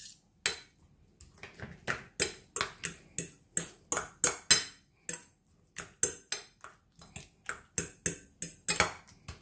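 A metal fork clinking and scraping against a ceramic plate while mashing and mixing soft grilled aubergine, in a quick uneven run of clinks, about two or three a second.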